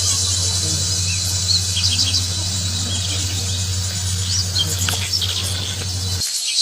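Dense, steady high-pitched insect buzzing, like crickets or cicadas, with scattered short bird chirps over it. Under it runs a low steady hum that cuts off suddenly near the end.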